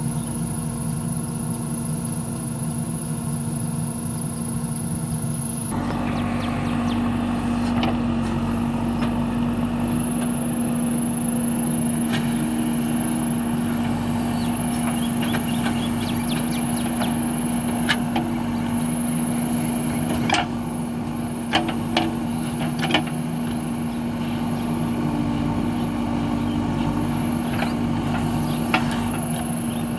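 JCB backhoe loader's diesel engine running steadily under digging load, its note stepping up about six seconds in, with a few sharp knocks in the second half.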